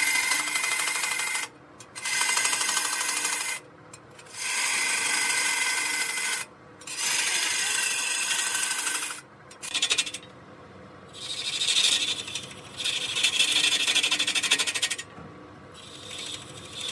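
Turning tool cutting a large wooden log spinning on a lathe, throwing off heavy shavings. It cuts in repeated passes of about two seconds with short breaks between them, over a faint steady hum.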